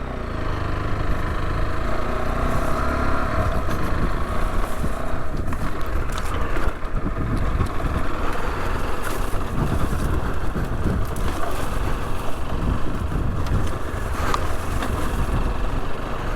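Rieju Adventura 125's 125 cc single-cylinder engine running steadily as the motorcycle is ridden along a rough unsurfaced green lane, with heavy low rumbling noise throughout.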